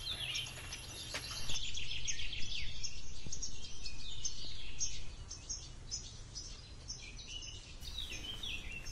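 Small birds chirping: rapid repeated chirps and quick down-slurred calls, busiest in the first half, over a steady low background hum.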